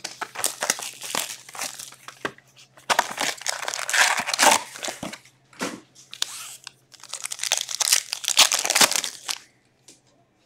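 Plastic wrapping on a sealed box of hockey cards and its packs crinkling and tearing as it is ripped open by hand, in several bouts, stopping shortly before the end.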